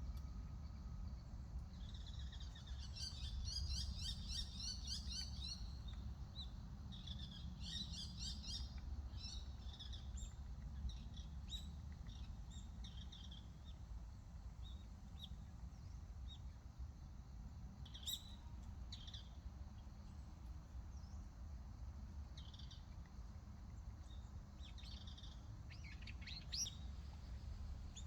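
Several small songbirds chirping and trilling, with a busy burst of rapid trills in the first few seconds and scattered short calls after. A steady low rumble of wind or background noise runs under them.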